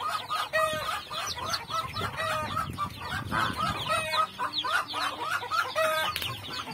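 Young chicks peeping: many short, falling chirps overlapping in a continuous chatter.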